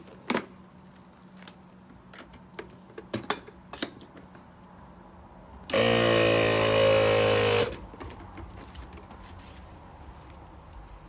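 Clicks and knocks of hoses and fittings being handled, then an ARB portable 12V air compressor switched on for about two seconds, its motor running steadily with a hiss, and cut off suddenly.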